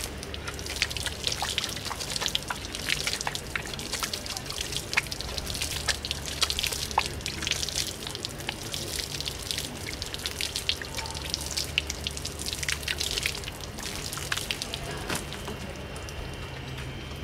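Water from a garden hose spraying and spattering onto a metal camping trailer's frame and wheel, with irregular splashes and drips.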